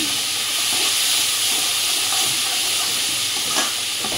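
Chopped onion, capsicum and tomato frying in a metal kadhai, a steady sizzling hiss as a metal spoon stirs them, with one light click about three and a half seconds in.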